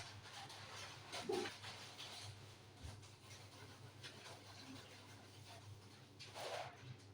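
A cat eating, with faint, irregular crunching and chewing of its food and a couple of slightly louder short noises, over a steady low hum.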